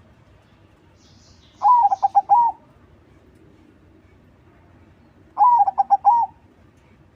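Crossbred zebra dove (perkutut crossing) cooing twice, about three and a half seconds apart, each phrase a second of quick rolling notes. Faint high chirps from another bird sound during the first phrase.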